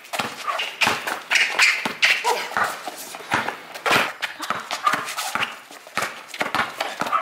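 Basketball bouncing on asphalt as it is dribbled, in an irregular run of knocks mixed with sneaker footsteps on the pavement, with short voice sounds in between.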